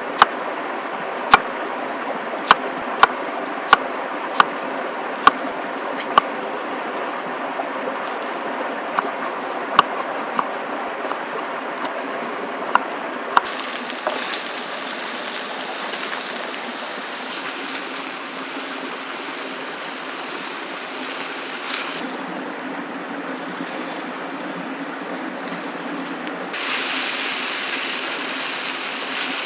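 A knife chopping vegetables on a cutting board, a sharp knock every half second to a second for about the first half. Then vegetables sizzling in a frying pan over a campfire, stirred with a wooden spatula, the sizzle louder near the end.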